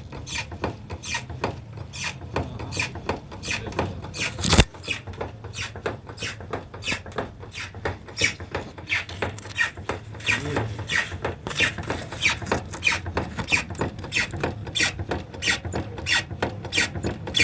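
A faulty car steering rack squeaking over and over, about three short squeaks a second, with one sharp knock about four and a half seconds in.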